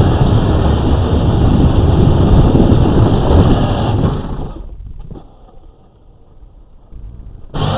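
Power Wheels ride-on toy car driving, a loud steady rumble of its plastic wheels and body on the pavement picked up by a camera mounted on the car. The noise falls away about four and a half seconds in as the car stops, and comes back suddenly near the end as it moves off again.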